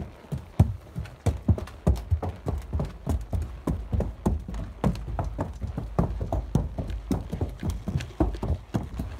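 Horses walking across a wooden plank bridge, their hooves knocking on the deck boards in an uneven clip-clop of several strikes a second.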